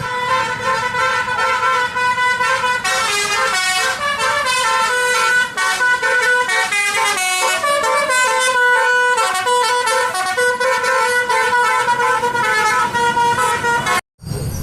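Telolet musical bus horn playing a melody of quickly changing notes. It cuts off abruptly near the end.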